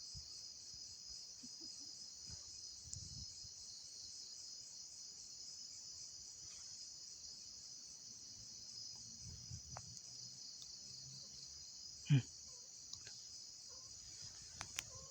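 Steady, high-pitched chorus of crickets trilling. A single short thump about twelve seconds in.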